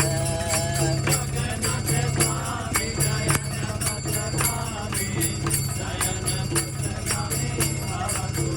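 Kirtan: kartals (small hand cymbals) clashing in a fast, even rhythm, with a steady low accompaniment and voices carrying the devotional melody between sung lines.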